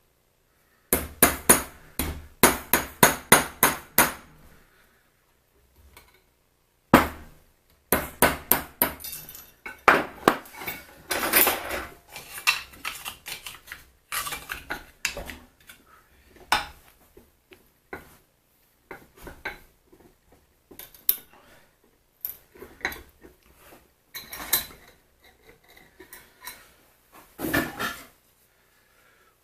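Quick runs of light hammer blows on steel vise parts, several a second with a metallic ring, tapping a stiff part that won't move, followed by scattered lighter clinks of metal on metal.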